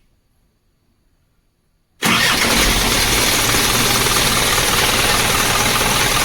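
Isuzu truck diesel engine starting suddenly about two seconds in and then running steadily and loudly. It starts now that its engine stop motor is getting current again after a faulty fuse was replaced.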